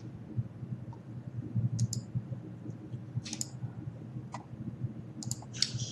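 Computer mouse clicking, half a dozen short clicks at uneven intervals over a faint, steady low hum.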